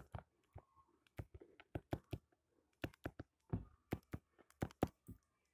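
Stylus tip tapping and clicking on a tablet's glass screen during handwriting: a soft, irregular run of small clicks, several a second.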